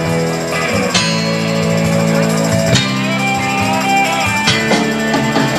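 Live country band playing an instrumental intro: guitars strumming sustained chords over drums, with accents roughly once a second.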